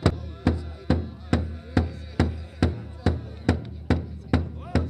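Large rawhide-headed powwow drum struck by several drummers in a steady, even beat, a little over two strokes a second, with men singing over it.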